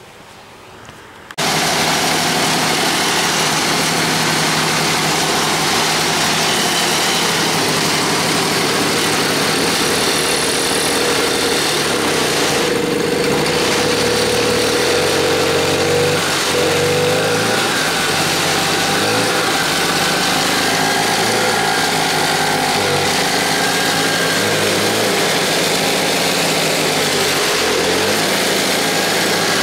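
Antique two-stroke engine running on a makeshift modern carburetor. It starts abruptly about a second and a half in, then runs steadily with its speed drifting slightly up and down.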